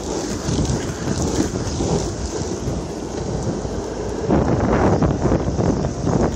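Longboard wheels rolling over asphalt with wind buffeting the microphone: a steady rumbling roar that gets louder for a second or so past the middle.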